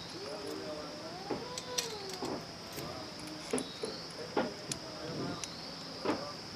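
Scattered light clicks and knocks of metal parts and tools being handled during motorbike clutch work, about seven over several seconds, over a steady high-pitched tone.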